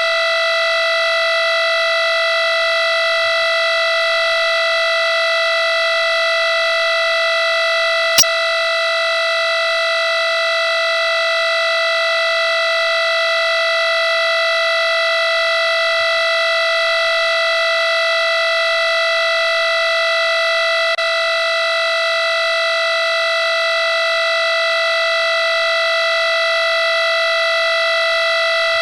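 Digital alarm clock sounding one steady, unbroken buzzing tone, with a single sharp click about eight seconds in.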